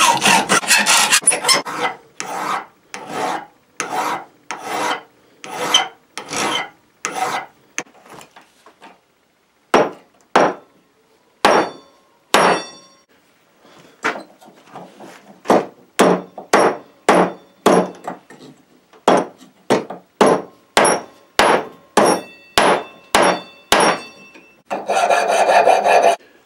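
Hand hacksaw cutting through flat steel held in a bench vise: a long run of separate saw strokes, about one to two a second, with a short pause partway and a faint metallic ring on the later strokes. Near the end the strokes blur into a continuous scrape lasting about a second and a half.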